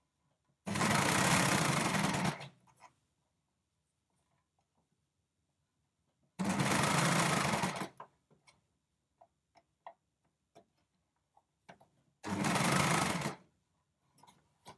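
Brother four-thread overlocker stitching a ribbing cuff onto jersey with its cutting knife engaged, in three short runs of a second or two each, stopping and starting as the fabric is eased around. There are faint clicks in the pauses between runs.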